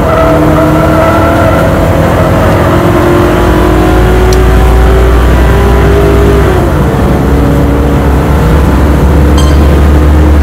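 Lincoln Mark VIII's 4.6-litre DOHC V8 at full throttle, heard from inside the cabin, revving steadily higher toward about 6,000 rpm. About six and a half seconds in it drops in pitch with an upshift, then pulls and climbs again.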